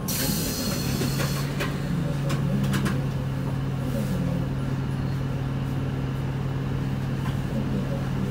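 Onboard sound of an Isuzu Erga city bus: its diesel engine runs with a steady low hum. There is a short hiss at the start and a few light rattles.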